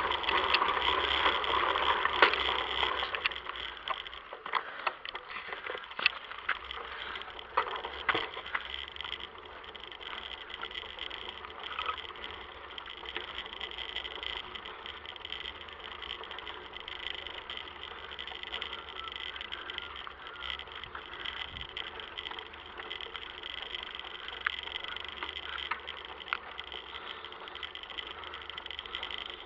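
Bicycle riding on asphalt, heard from a camera mounted on the bike: tyre and road noise with rattles and sharp clicks from the bike, louder for the first three seconds or so, then a quieter steady hiss with scattered ticks.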